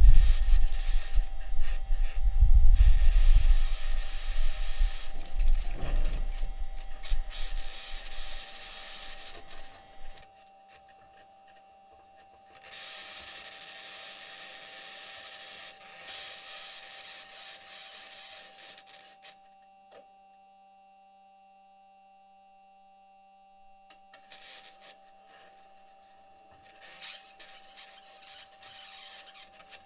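Perseverance Mars rover driving, heard through its onboard microphone. For about the first ten seconds the wheels and suspension rumble and grind over the rocky ground, with a high-pitched scratching over it. The scratching then carries on alone, drops out for a few seconds, and returns as scattered crackles, with a faint steady tone underneath.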